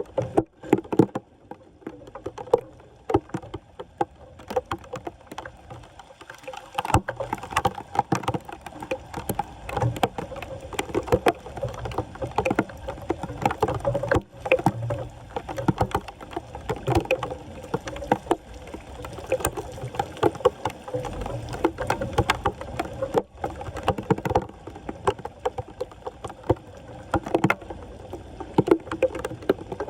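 Floodwater splashing and sloshing, with irregular knocks and splashes throughout, as a flooded street drain is being cleared by hand.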